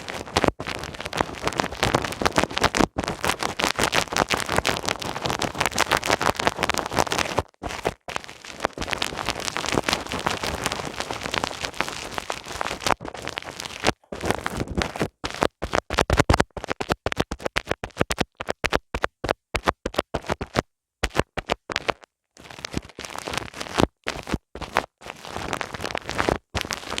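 ASMR ear massage: close rubbing and scratching against the microphone, a dense crackling friction noise broken by a few short silences.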